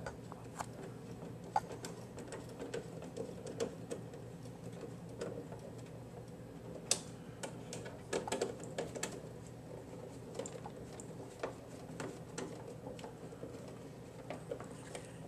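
Irregular small clicks and ticks as screws are turned by hand with a screwdriver through a plastic drip tray grate, the tool and screws knocking lightly against the tray. A faint steady hum runs underneath.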